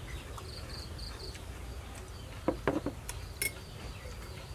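Insects trilling steadily in a high thin tone, pulsing briefly in the first second, with a few short sharp clicks about halfway through.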